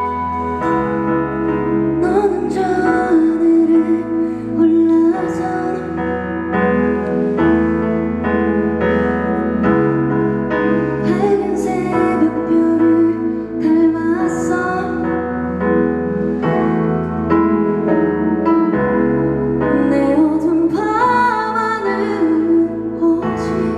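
Live band music: a woman's lead vocal sung over keyboard, with bass and light drums underneath, bass notes changing about every two seconds.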